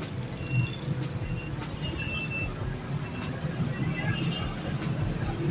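Steady low rumble of street traffic, with short high squeaks scattered through it.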